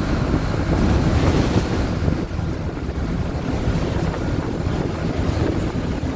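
Mercedes-Benz OF-1722M city bus's front-mounted diesel engine running with the bus under way, heard from inside the bus as a steady low rumble mixed with road and wind noise. It eases off slightly about two seconds in.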